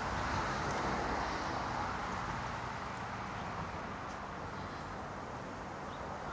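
Distant, steady drone of a Cessna 310R's twin six-cylinder piston engines and propellers as it passes high overhead.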